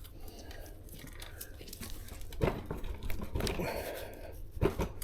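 Scattered clicks and light knocks of an e-bike's chain and rear wheel being handled, as the wheel is worked out of the frame.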